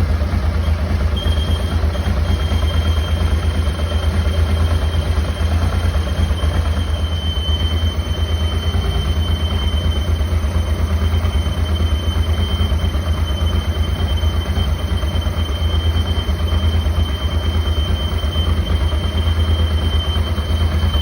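Honda Transalp PD06's V-twin engine running steadily with a thin, high, continuous squeal over it, breaking off briefly in the first couple of seconds and growing stronger about a third of the way in. The owner traces the squeal, which comes when the engine is warm, to a water pump damaged by long standing.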